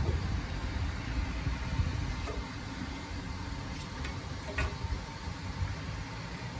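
Low outdoor background rumble with a few faint, light clicks as metal hand tools are handled against steel tubing.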